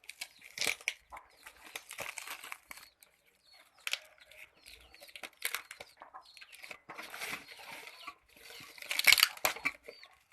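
Packaging crinkling and rustling in irregular bursts as it is handled and pulled away, with chickens clucking now and then in the background.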